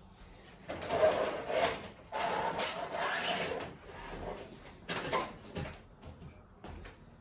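Handling noises from repotting a plant: two stretches of rustling and scraping, as of roots, soil and a plastic pot being worked by hand, then a couple of sharp knocks about five seconds in.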